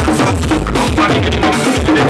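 Loud soca music with a driving drum kit and bass line.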